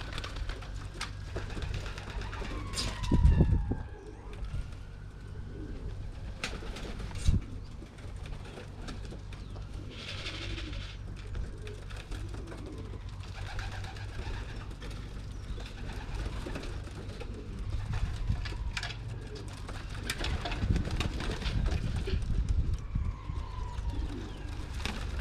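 Racing pigeons cooing in a loft over a steady low rumble, with a loud thump about three seconds in and a sharp knock a few seconds later.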